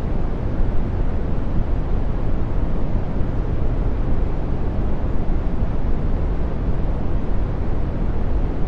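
Steady brown noise: deep, soft random noise, strongest in the low end and thinning out toward the highs, with no changes.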